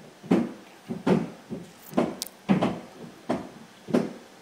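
Roofers' hammer blows on the roof above, heard through the ceiling from the room below: a string of irregular, off-rhythm knocks, one or two a second.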